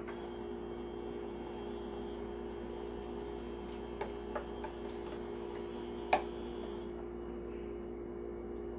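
A toy kitchen sink's faucet running a thin stream of water into its plastic basin, starting about when it is pressed and stopping about 7 seconds in. There are a few small clinks of toy utensils against the sink, the loudest about 6 seconds in.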